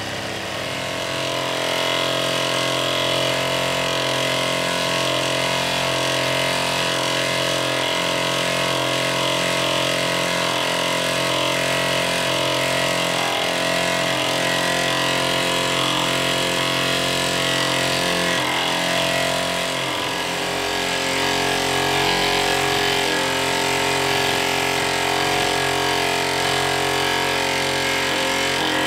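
Toy steam engine's small brass cylinder running on steam from its burner-heated boiler, turning over at a steady speed with an even, mechanical running note.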